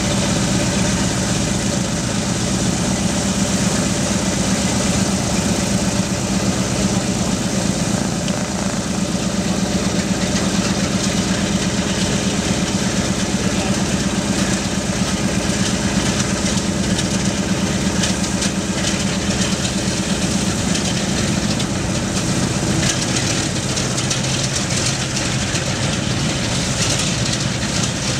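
Boeing B-17 bomber's Wright R-1820 Cyclone radial engines idling after start-up, a steady, unbroken rumble.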